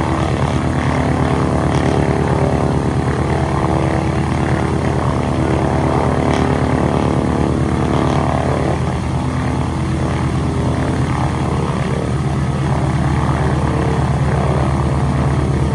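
North American Harvard trainer's nine-cylinder Pratt & Whitney R-1340 Wasp radial engine running at low power with the propeller turning as the aircraft taxis slowly. The engine note is steady and evenly pulsing throughout.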